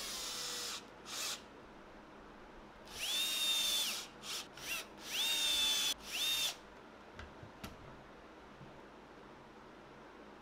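Cordless drill driver driving screws into a wooden strip: several runs of motor whine, each quickly rising in pitch and holding steady, some of them just short pulses as a screw is snugged down. The last few seconds hold only a few faint clicks.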